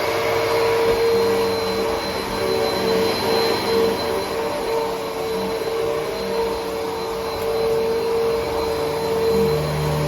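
Hoover WindTunnel T-Series upright vacuum cleaner running steadily after switch-on: a thin high motor whine over the rush of air.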